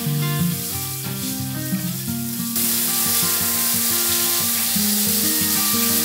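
Water spraying onto the mesh of air-conditioner filters, rinsing the dust off them: a steady hiss that grows louder about two and a half seconds in.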